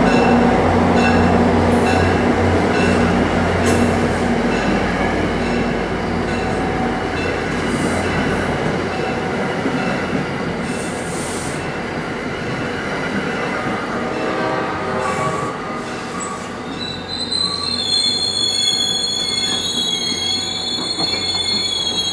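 NJ Transit commuter train rolling slowly past close by, its wheels clicking regularly over rail joints under a low steady hum that fades as the cars go by. In the last few seconds a train's wheels give a high, wavering squeal.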